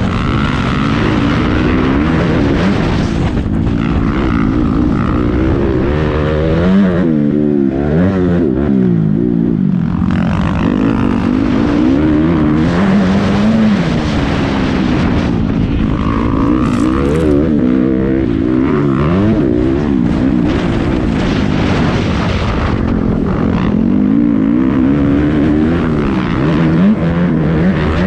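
Motocross bike engine heard from the rider's helmet camera, its pitch climbing and dropping again and again as the throttle is opened and chopped through turns and gear changes, with a rush of wind and track noise on the microphone.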